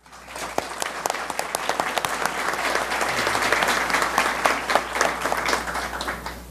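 An audience applauding, many hands clapping together, the applause swelling up within the first second and then holding steady.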